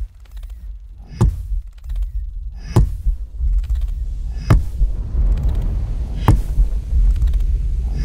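Four deep thumps into sand at an even beat, a little under two seconds apart, over a steady low rumble, recorded through microphones buried in the sand, as in a Dune thumper recording.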